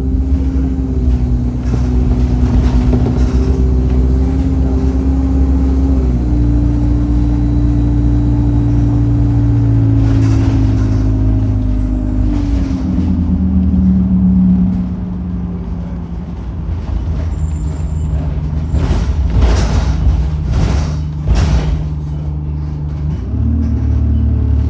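Bus diesel engine with a high-pitched turbo whistle, pulling through an Allison automatic gearbox that shifts with a step in pitch twice. The whistle slides down and dies away as the bus slows to idle, a few short air hisses come from the brakes, and the engine picks up again near the end.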